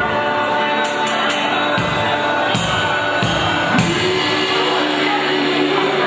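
Live band music: a man singing long held notes into a microphone over a drum kit, with cymbal strikes scattered through.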